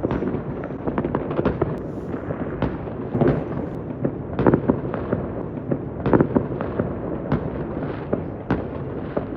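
Many fireworks going off at once across a city, heard from a distance: a continuous rumbling crackle of overlapping bangs, with sharper individual bangs standing out every second or so.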